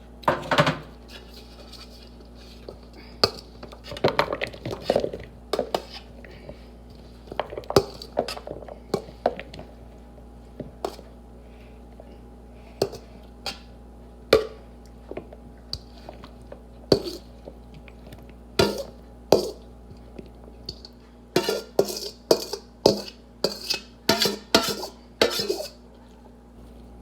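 Utensils clinking and knocking against dishes, scattered at first and then a quick run of taps near the end.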